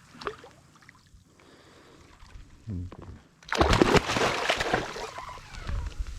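A big hooked fish thrashing at the water's surface: a loud burst of splashing lasting about two seconds from just past halfway, and a shorter splash near the end.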